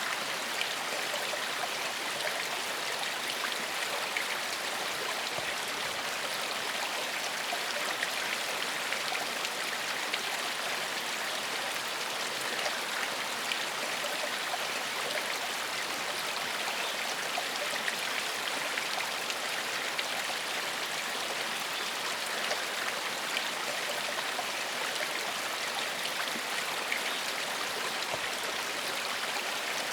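Small forest stream flowing over stones: steady babbling water with fine splashes and trickles.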